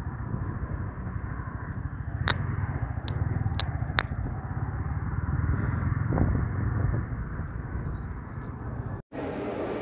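Steady low vehicle rumble, with four sharp clicks between about two and four seconds in; the sound changes abruptly near the end.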